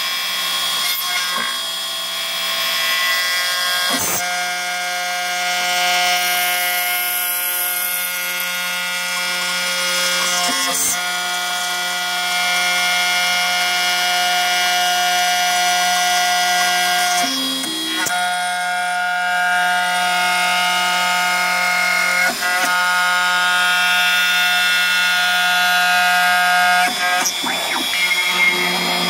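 Homemade CNC mill's 2.2 kW spindle end-milling a steel plate under flood coolant: a steady, many-toned machine whine, broken by a short click or shift a few times.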